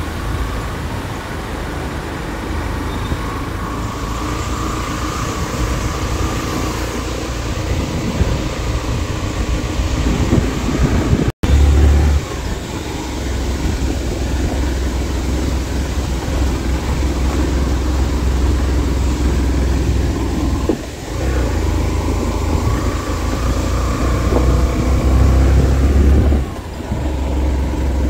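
A vehicle engine running with road noise as it drives along, a steady rumble with level engine tones. The sound cuts out for an instant about 11 seconds in, and dips briefly twice later on.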